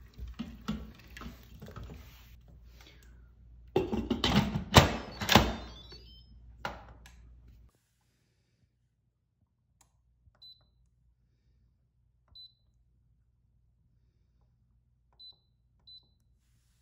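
Clattering and a few loud clanks of kitchen handling over a low hum, which stops suddenly; then four short, high beeps from the Instant Pot's control panel as its buttons are pressed.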